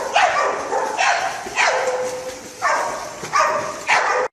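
A dog barking repeatedly, about six barks at uneven intervals, over a faint steady tone.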